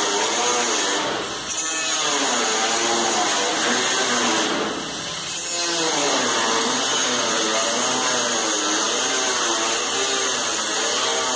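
Compressed-air paint spray gun hissing steadily over a wavering machine hum, with stronger bursts of spray about a second in and again around four to five seconds in.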